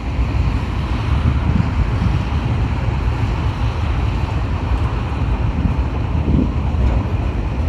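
Empty log wagons of a freight train rolling past, a steady rumble of steel wheels on the rails, with wind buffeting the microphone.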